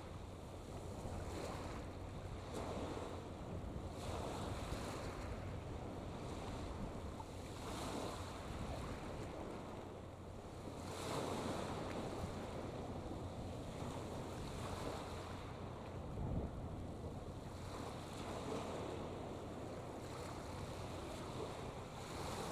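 Small waves washing in irregular surges every few seconds, with wind rumbling on the microphone.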